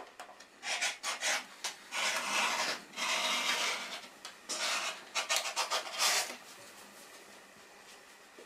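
Rotary cutter rolling through layered cotton fabric on a self-healing cutting mat, in a series of short cutting strokes that stop about six seconds in.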